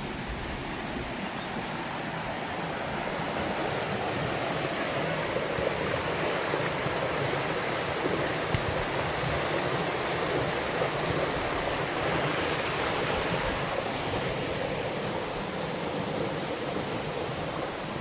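Shallow rocky stream rushing over stones and small cascades, a steady rush of water that grows louder a few seconds in.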